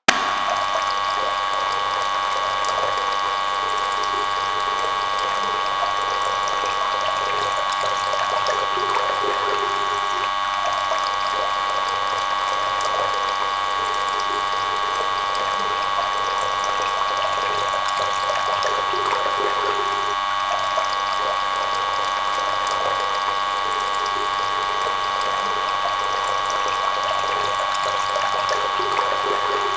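Small electric motor running steadily with a high whine and a light mechanical rattle, starting abruptly.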